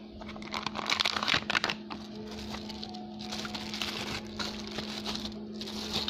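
Clear plastic packaging bags crinkling and rustling as they are handled, with a louder run of crackling about a second in, over a steady low hum.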